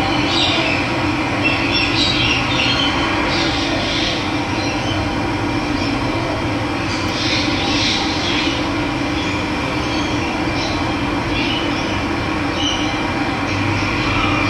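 Steady rush of running water, with birds chirping now and then over it.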